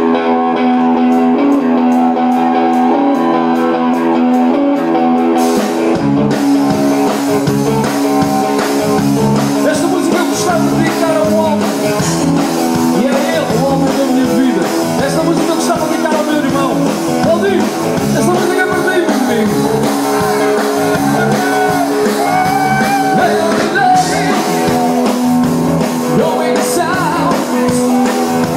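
Live rock band. An electric guitar plays alone for about the first six seconds, then bass and drums come in and a man sings over the full band.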